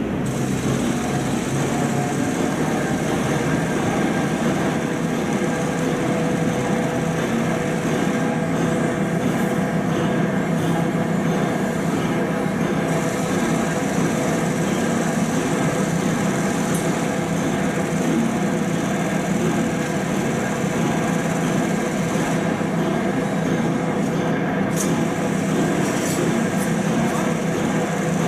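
Heavy machinery running steadily, a constant mechanical drone with a steady low hum and fainter higher tones throughout.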